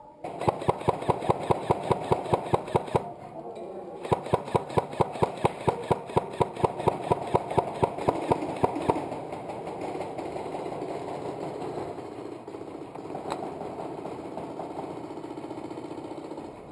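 Airsoft electric guns firing on full auto: two long bursts of rapid, evenly spaced shots, the first about two and a half seconds, the second about five, followed by a quieter, steady rattle of fire that echoes through a large empty factory hall.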